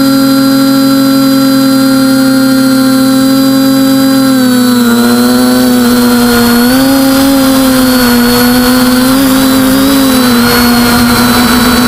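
TBS Discovery quadcopter's brushless motors and propellers whining, loud and close as picked up on the airframe. The pitch holds steady for about four seconds, then dips and wavers up and down before settling a little lower near the end.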